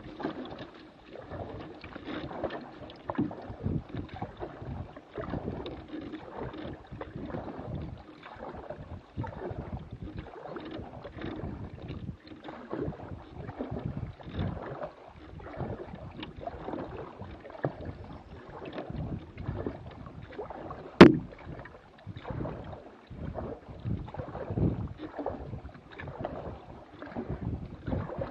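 Canoe being paddled along a slow river: uneven paddle strokes and water splashing and lapping at the hull, with one sharp knock about three quarters of the way through.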